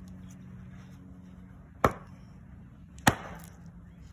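Two sharp strikes of a hatchet chopping into an upright log of firewood, about a second and a quarter apart, the second followed by a brief ring.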